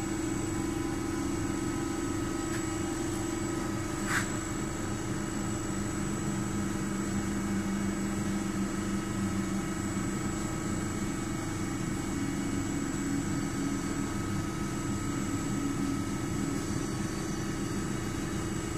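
Ajax Fel 1760 CNC lathe running with its hydraulics on while it homes its Z axis: a steady machine hum with several constant tones. A lower tone joins in for several seconds in the middle, and there is a single sharp click about four seconds in.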